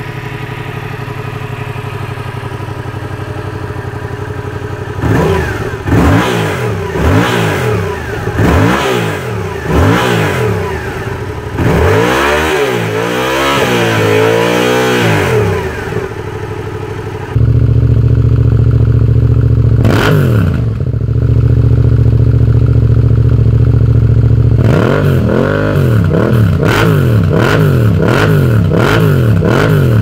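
Yamaha MT-07's parallel-twin engine idling through the stock exhaust, then revved in a series of short throttle blips and one longer rev held a few seconds. About halfway through it cuts to the same engine idling louder and deeper through an aftermarket Lextek silencer, with a single rev and then a quick run of blips near the end.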